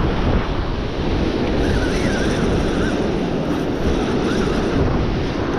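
Surf breaking on the beach, a steady wash of noise, with strong wind buffeting the microphone.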